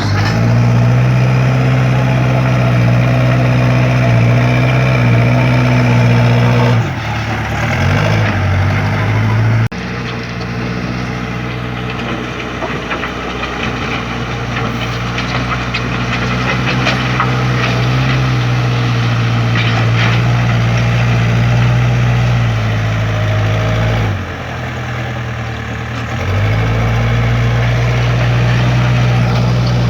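Backhoe's diesel engine running steadily under working load. Its sound drops for a few seconds about seven seconds in and again near the end, then comes back up.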